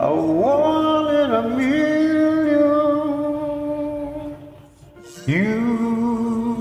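Karaoke backing track of a slow soul ballad with a singer holding long wordless notes: one slides up and is held, the sound dips a little over four seconds in, then a second note slides up and is held.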